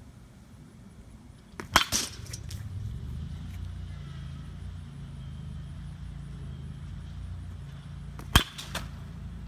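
Baseball bat striking a pitched ball, two sharp cracks about six and a half seconds apart, the second followed by a fainter knock. A low steady engine-like hum sets in under them after the first hit.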